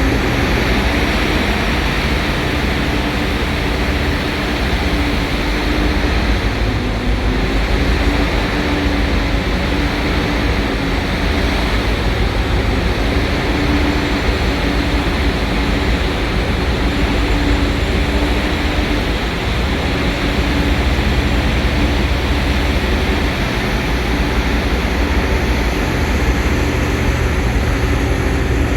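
Large hydraulic mining excavator's diesel engine running steadily, a deep continuous rumble with a steady hum whose pitch dips briefly about seven seconds in.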